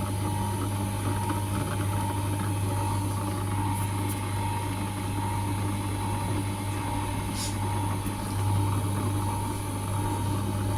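Eyeglass lens grooving machine's small electric motor running steadily: a constant low hum with a steady higher tone over it.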